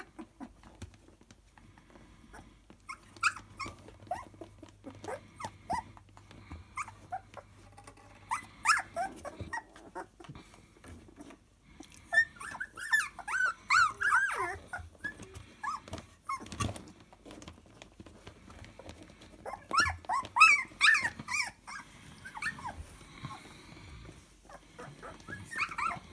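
Young Siberian husky puppies whining and squealing in short wavering bursts. The cries come in several spells, loudest a little past the middle and again about three-quarters of the way through, with faint scratching between them.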